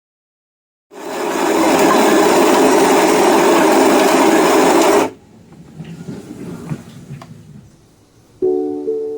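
Vantro X1 espresso machine running with a loud hissing rush that starts about a second in and cuts off abruptly about four seconds later, followed by quieter clatter; soft piano music comes in near the end.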